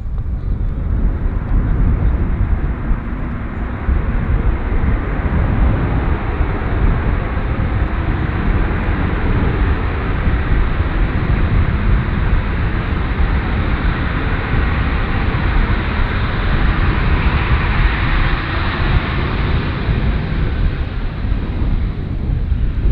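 Airliner engines passing on the runway: a steady low rumble with a rushing sound that builds to its loudest near the end, then eases off slightly.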